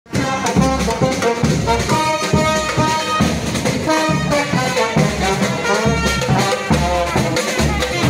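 Music with brass instruments and drums, melodic lines over a repeated low beat.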